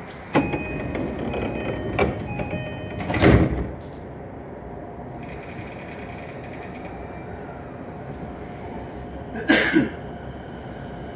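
Commuter train's doors closing at a station stop: a door chime beeps repeatedly, then the sliding doors shut with a thud about three seconds in. The car then hums steadily, and a short loud hiss of air comes near the end as the train gets ready to pull away.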